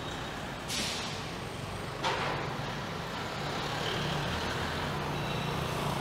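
Street traffic: vehicle engines running with a steady low hum, and two short hisses, the second sharper and louder, about a second and a half apart.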